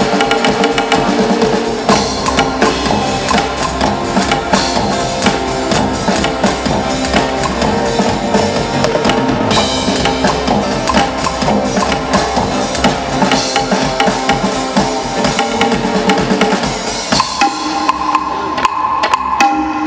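Live instrumental music: drums and percussion keep a busy beat over held string tones. Near the end the drums thin out and a higher held tone comes forward.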